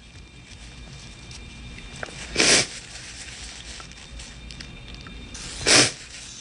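Two short, sharp sniffs through the nose, about three seconds apart, from a woman whose allergic rhinitis is flaring up.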